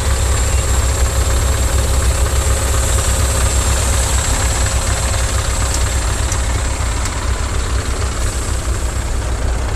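Heavy truck's diesel engine idling close by: a steady low rumble.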